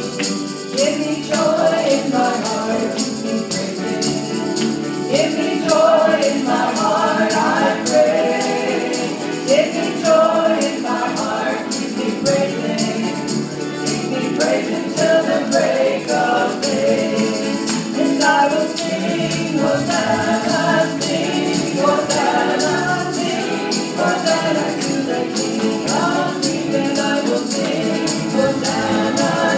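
Live worship song: a group of voices singing together with piano accompaniment, over a steady rhythmic percussion beat.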